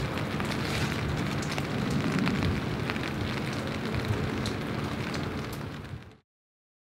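Rain pattering steadily in many small drops, fading out and stopping about six seconds in.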